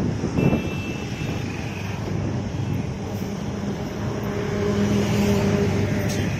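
Passenger train coaches rolling along the track, a steady rumble mixed with wind on the microphone. A steady droning tone joins about three seconds in.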